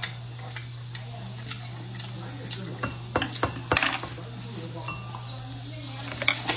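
Eating sounds: a person biting and chewing food, with scattered short clicks and smacks, bunched about three to four seconds in and again near the end. A steady low hum runs underneath.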